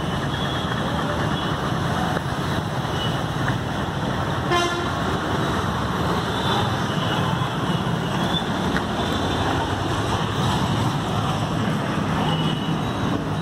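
Steady road traffic noise with vehicle horns tooting briefly several times, one horn standing out about four and a half seconds in.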